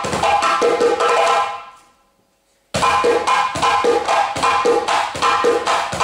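Solo djembe played by hand in quick, dense strokes. The drumming fades out a little over a second in, leaves about a second of silence, then starts again suddenly and keeps going.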